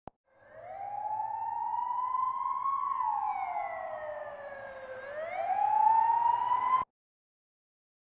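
Recorded ambulance siren in slow wail mode: the pitch rises for about two and a half seconds, falls for two, then rises again before cutting off suddenly. A short click comes right at the start.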